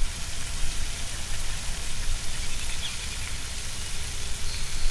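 Meat sizzling on hot grill grates: a steady, even crackle.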